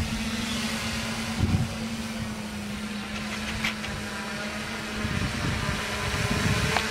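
Brushless electric motors and propellers of a homemade cardboard helicopter-airplane model humming steadily in flight, one held pitch, with wind buffeting the microphone.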